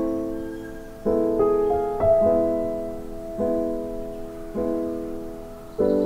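Background music: slow piano chords, each struck and left to ring and fade before the next, a new chord about every one to one and a half seconds.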